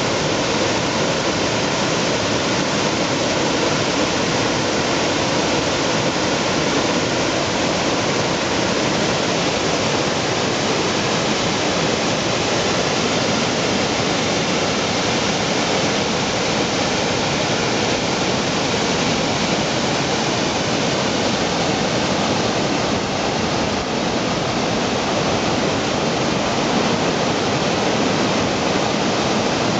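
Water rushing over a low concrete weir and churning into whitewater in the pool below, a loud, steady roar of moving water.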